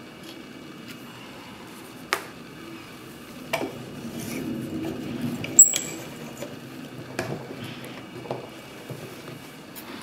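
Sharp metal clicks and clacks from a Sargent & Greenleaf lever mailbox lock being handled, about five in all, the loudest about five and a half seconds in with a brief high ring, over the rustle of fingers on the lock.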